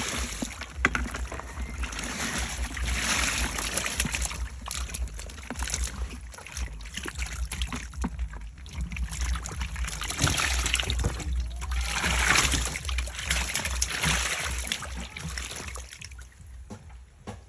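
Water splashing and sloshing, swelling and fading several times, with scattered clicks and a steady low rumble underneath.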